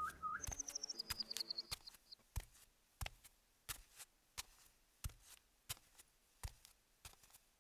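Faint footsteps sound effect, a steady walking pace of about one and a half steps a second, with a bird chirping a short trill of falling notes in the first two seconds.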